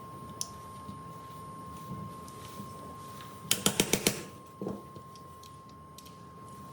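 Glock 19 pistol being handled during reassembly: a quick run of about six sharp clicks about halfway through, followed by a softer knock.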